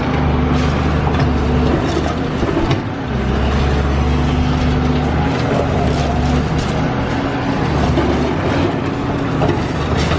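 Caterpillar high-reach demolition excavator's diesel engine running hard under load, easing off briefly about three seconds in, with scattered cracks and knocks of the building being pulled apart.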